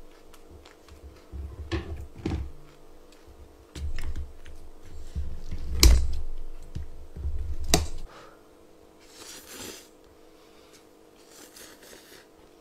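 Kitchen scissors snipping bibim naengmyeon noodles in a bowl: a series of sharp clicks and knocks, the loudest about six seconds in, with dull bumps between them. Near the end come two short airy slurps as the cut noodles are sucked up.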